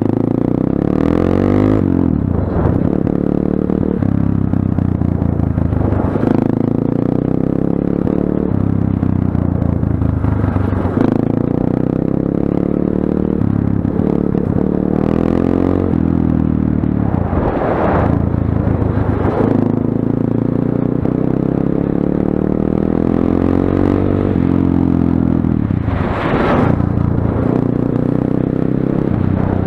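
Motorcycle engine running as the bike rides along, its pitch climbing and dropping several times as it speeds up and eases off. A few short bursts of rushing noise sound over it.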